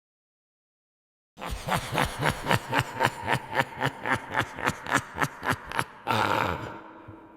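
High-pitched evil cackling laugh, a fantasy-villain sound effect: a rapid run of staccato 'ha's, about four or five a second, starting after a second or so of silence and ending in one drawn-out cry that fades away.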